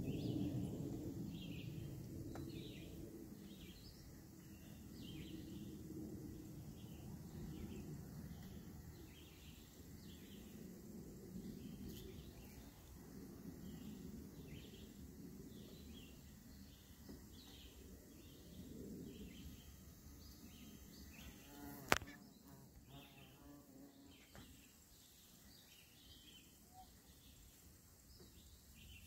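Outdoor summer ambience: a short high chirp repeats about twice a second over a low, uneven rumble. One sharp click comes late on.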